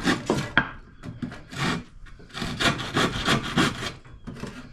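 Handsaw cutting wood with quick back-and-forth strokes, about three a second, in short runs with a pause in the middle and another near the end.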